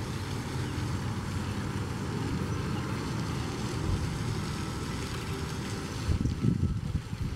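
Wind buffeting the camera microphone, a steady low rumble with stronger gusts about six seconds in.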